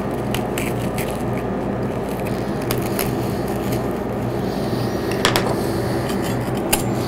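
A metal butter curler scraping and crunching into a block of Rice Krispie treat on a wooden cutting board, with scattered small clicks, over a steady low hum.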